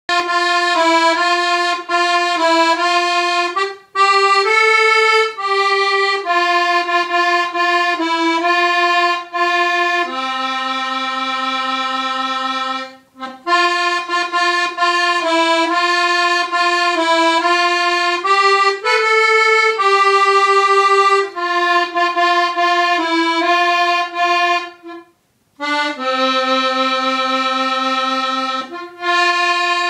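Small piano accordion playing a simple melody in sustained reedy notes, with brief breaks between phrases. The same phrase comes round twice, each time ending on a lower held chord.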